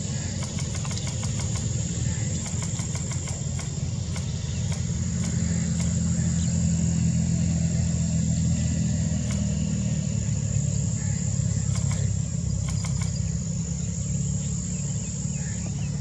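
Low engine rumble that swells through the middle and eases again, under a steady high-pitched insect drone with scattered faint ticks.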